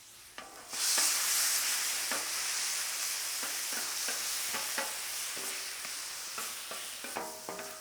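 Chopped, thin-sliced ribeye sizzling in fresh oil on the hot part of a flat-top griddle. The sizzle flares up loud under a second in and then eases off, with scattered scrapes and clinks of a spatula on the griddle, a few ringing near the end.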